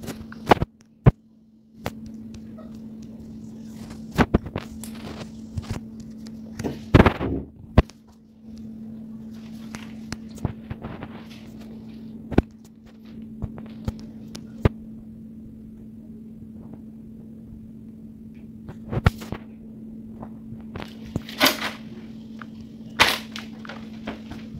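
Irregular sharp clicks and knocks over a steady low hum, with a few louder rustling bursts about seven seconds in and near the end.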